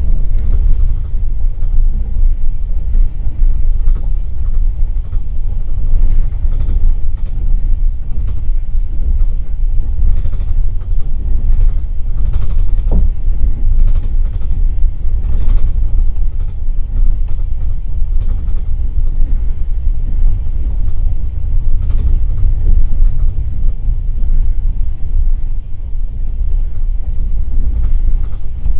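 A passenger train running at speed, heard from inside an open-plan sleeping carriage: a loud, steady low rumble from the wheels and running gear, with scattered knocks and a brief squeal about halfway through.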